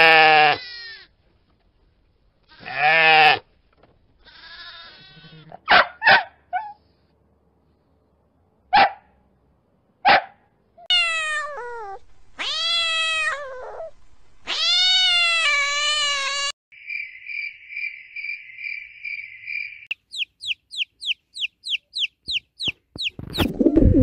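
Sheep bleating several times, followed by a domestic cat meowing three times in long rising-and-falling meows, the last the longest. After the meows comes a high, steady pulsing call and then a fast run of short high chirps, about four or five a second.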